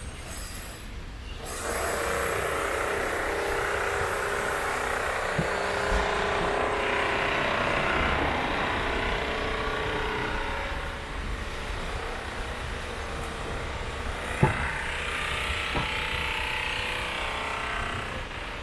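Road traffic passing by: the sound of vehicles swells about a second and a half in, eases after the middle, and swells again near the end, with a sharp click about two-thirds of the way through.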